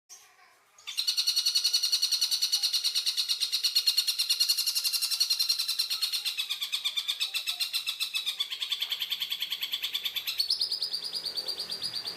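A tengkek buto bird call: a loud, rough, very fast rattling trill of evenly repeated notes that starts about a second in and runs on without a break, its pitch sagging briefly in the middle and lifting again near the end.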